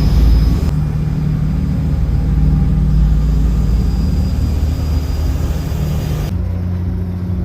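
Boat engine running with a loud, steady low drone and a faint high whine; the drone changes abruptly about six seconds in.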